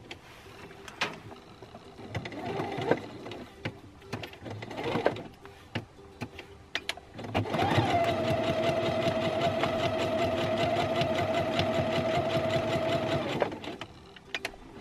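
Pfaff Quilt Ambition 2.0 computerized sewing machine stitching a short seam. It starts about halfway in and runs for about six seconds as a steady motor whine with rapid, even needle strokes, then stops abruptly. Before it there are only a few quiet clicks and rustles.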